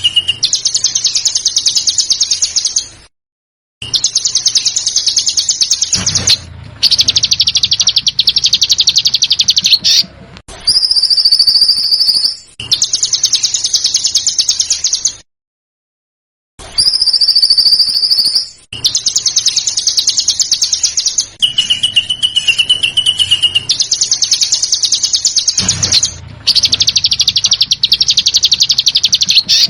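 Recorded songbird calls made of rapid rattling trills, the harsh 'besetan' style, repeated in phrases a few seconds long with short silent breaks. Brief higher notes come in around the middle, and a lower steady whistle comes in about two-thirds of the way through.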